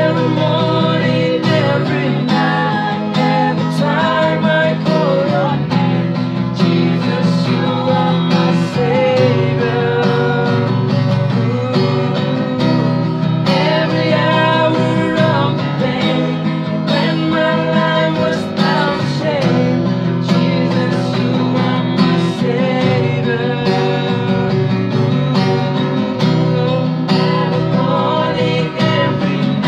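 A group of young voices singing together in unison to a steadily strummed acoustic guitar.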